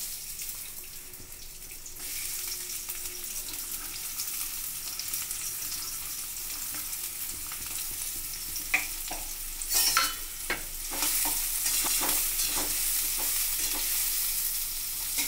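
Sliced onions sizzling as they fry in hot refined oil in a steel kadai. The sizzle grows louder twice, with a few clinks about two-thirds of the way through.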